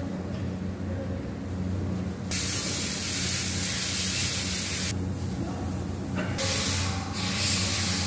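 Steady hiss over a low steady hum. The hiss is absent for the first couple of seconds, then drops out again for about a second and a half past the middle.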